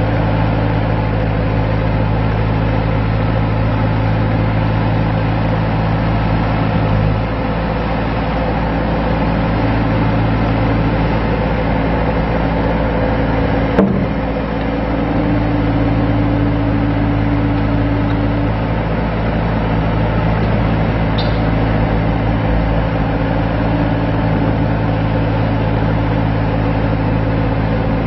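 Diesel engine of a Bobcat T190 compact track loader, a Kubota V2403 four-cylinder, running at a steady speed. There is a single short knock about fourteen seconds in.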